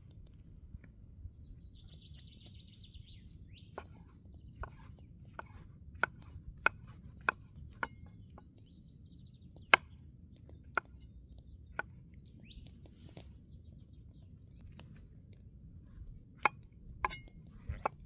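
Large chef's knife chopping wild mushrooms on a wooden log, each stroke ending in a sharp knock of the blade on the wood: a dozen or so irregular strokes, with a pause of a few seconds before the last few. A bird chirps briefly about two seconds in.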